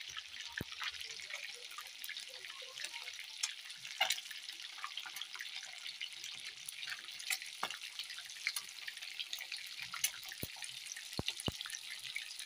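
Whole tilapia deep-frying in hot oil: a steady sizzle dotted with many small crackles and a few louder pops.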